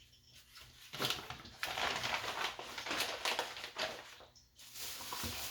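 Floured chicken pieces going into hot frying grease: a crackling sizzle starts suddenly about a second in, dies down briefly, and comes back as a steady sizzle near the end.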